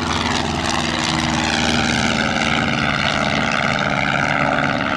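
Rutan Long-EZ pusher-prop canard aircraft departing, its piston engine and propeller making a steady, loud drone with a set of even engine tones.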